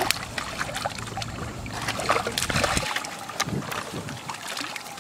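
Shallow muddy water splashing and sloshing as a man wades and hauls hooked fish on a bottle-float line out of it. Wind rumbles on the microphone until about halfway through.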